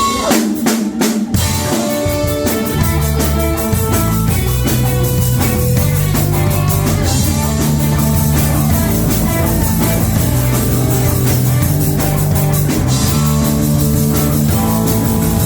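Rock band playing live, with drum kit and guitar. A few drum hits open it, then the full band comes in with a steady beat.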